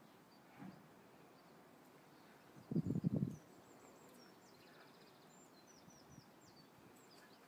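Quiet outdoor background with faint, high bird chirps, and one brief low, rough sound lasting about half a second around three seconds in.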